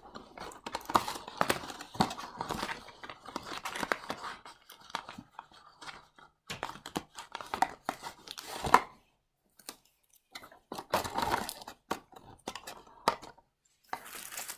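Plastic candy wrappers crinkling and rustling as wrapped chocolates are handled, in irregular crackly bursts with a brief pause about nine seconds in.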